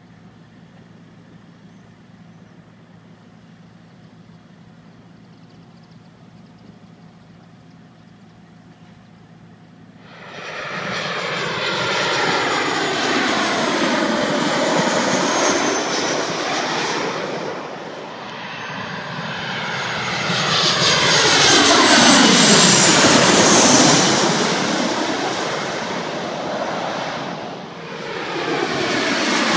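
A steady low hum, then from about ten seconds in jet airliners passing low overhead, among them a Boeing 737 on final approach with its gear down. The engine noise comes in loud with a whine that slides down in pitch, and swells again twice as further jets pass near the middle and near the end.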